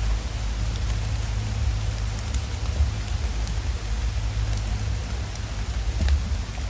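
Steady rain falling, an even hiss with a low rumble underneath and a few scattered drop ticks.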